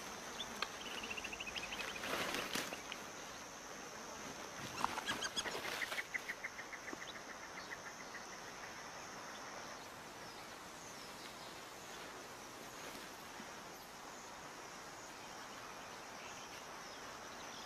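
Open-savanna ambience: a steady high insect buzz, with rapid trilling bird calls about a second in and again around six seconds. Two short bursts of rustling noise stand out around two and five seconds in.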